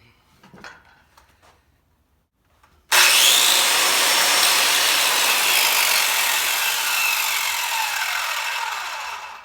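Corded circular saw with a freshly replaced power cord and a new blade, test-cutting wood: it starts suddenly about three seconds in, runs loud and steady through the cut for about six seconds with its pitch sagging slowly near the end, then stops abruptly.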